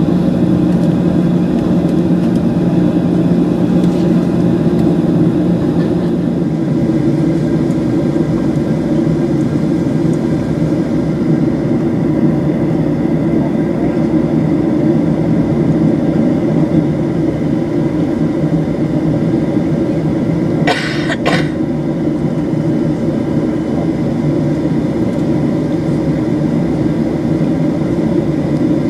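Cabin noise of a Boeing 737 heard from inside over the wing: its CFM56 jet engines running steadily at low taxi power, a loud even hum with a steady whine. About two-thirds of the way through, two brief sharp sounds cut in.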